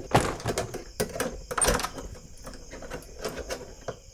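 Door being opened, with a string of irregular clicks and knocks.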